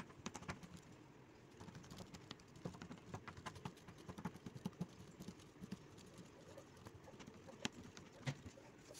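Faint, quick, irregular taps of a fork being jabbed repeatedly into pizza dough lying in a metal pizza pan, pricking holes so that it won't bubble.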